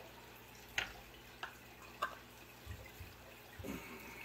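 A few faint drips and small ticks of liquid falling from wet pork jig trailers and their jar as they are handled, with soft knocks of the plastic jar being moved and set down in the second half.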